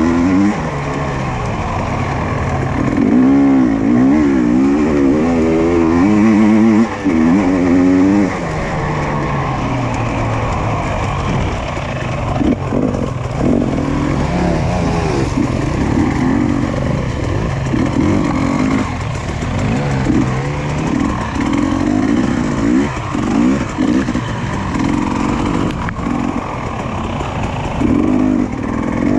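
Off-road dirt bike engine revving up and down with the throttle. The pitch wavers quickly up and down for the first eight seconds or so, then the engine comes in shorter, repeated bursts of throttle.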